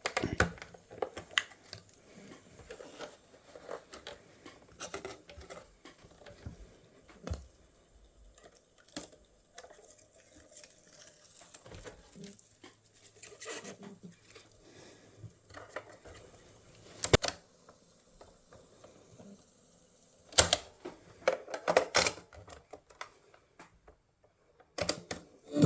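Irregular small clicks, taps and rustling from objects being handled, with a few sharper clicks in the second half.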